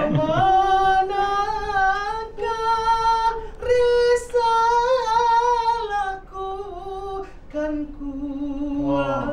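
Unaccompanied singing in a high voice: long held notes with vibrato, a short breath about three and a half seconds in, and softer, lower phrases over the last few seconds.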